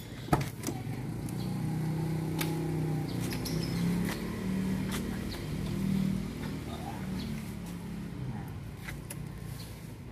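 Daihatsu Zebra van's driver door being unlocked with the key and its latch opening with a sharp click, followed by scattered small clicks and knocks as someone gets into the seat. A low engine hum rises and falls in pitch through the middle, not from the Zebra, whose engine is not yet running.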